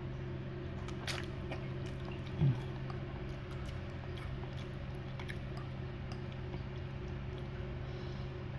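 Close-up chewing of boiled noodles with egg, wet and soft, with a few small clicks and one short low thump about two and a half seconds in, over a steady low background hum.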